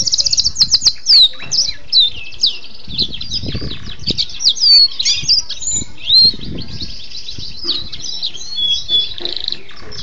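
Domestic canary singing a long, unbroken song of rapid trills and sweeping whistled notes, opening with a fast run of repeated notes.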